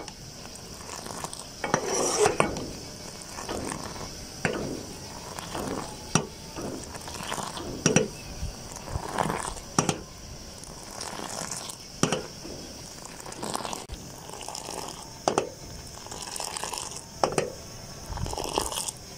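Steel ladle scooping pink Kashmiri chai and pouring it back into a metal saucepan, clinking against the pot every second or two with splashing pours in between. The tea is ladled over and over like this to thicken it.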